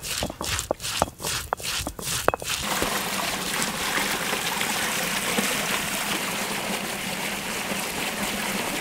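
Open fire of dry palm fronds crackling, with a rapid run of sharp pops for about two and a half seconds, then giving way to a steady rushing hiss.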